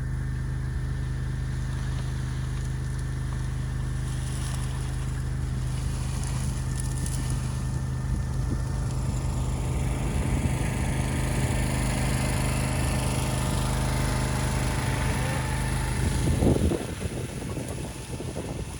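A vehicle engine idling steadily with an even low hum. Near the end comes a brief loud noise, after which the hum drops much quieter.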